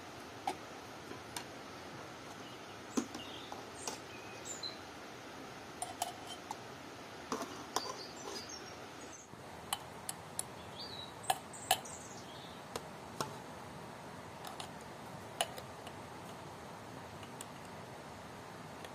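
A metal spoon clicking and clinking against a glass jar and a metal pot as apple pieces in syrup are spooned into the jar, in scattered sharp taps. Small birds chirp now and then.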